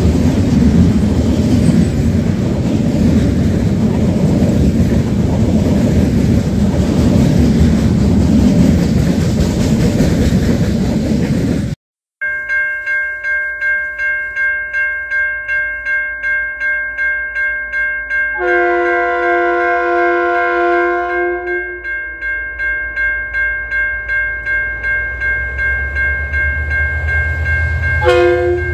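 A container freight train rumbling and clattering past for about the first twelve seconds. After a sudden break, a level crossing bell rings in a steady beat, and an approaching diesel locomotive's horn sounds one long blast partway through and starts another near the end.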